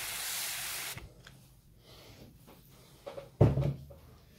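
Hand-pump pressure sprayer misting water onto potting soil: a steady hiss that stops about a second in. Faint rustling follows, then one dull thump near the end.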